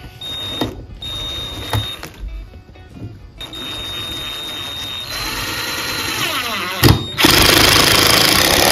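Iris Ohyama cordless impact driver driving screws into a wooden frame: short runs of the motor whining, then a longer run that breaks into loud, fast hammering about seven seconds in as the impact mechanism takes the load.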